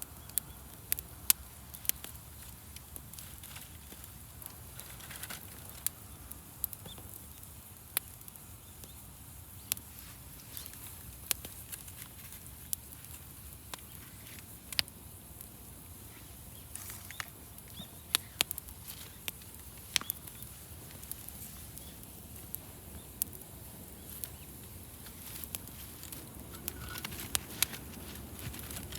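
Wood fire crackling: irregular sharp pops and snaps, a few much louder than the rest, over a steady soft hiss.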